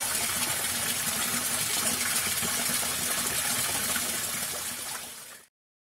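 Water rushing steadily in an even, loud gush that fades and cuts out about five and a half seconds in.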